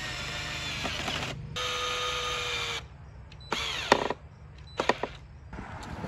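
Power drill driving a screw into the wood to fasten the carved arm, its motor whining steadily in two long runs with a brief pause between, then a short burst near the middle and a few sharp clicks.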